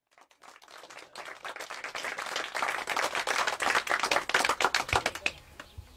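Audience applause: many hands clapping, swelling over a few seconds and dying away about five seconds in.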